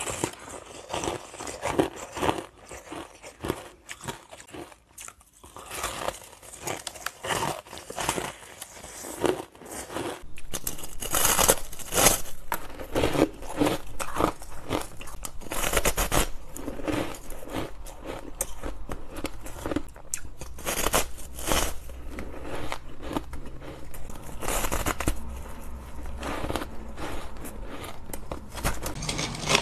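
Close-up biting and chewing of frost-covered ice: a dense run of crisp crunches and crackles. It gets louder and fuller from about ten seconds in.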